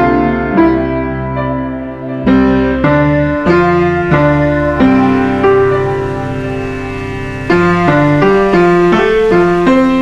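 Background piano music: single notes and chords struck about every half second to second, each ringing and dying away.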